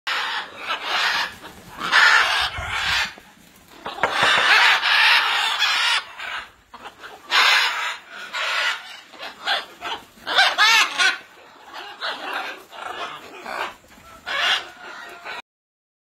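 A flock of scarlet macaws squawking: loud, harsh calls one after another, with short gaps between them.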